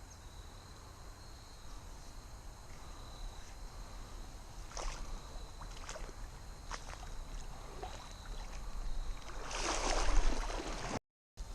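Footsteps of someone walking along a creek bank: scattered snaps and scuffs, building to a louder scuffling rush about ten seconds in, over a low rumble of wind or handling on the microphone.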